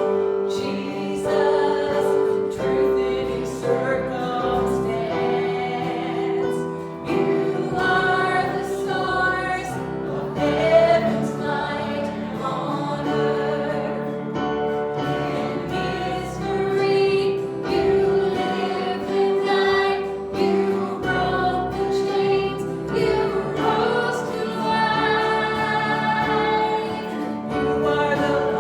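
Congregation singing together in a worship service, with a sustained instrumental accompaniment holding long notes under the voices.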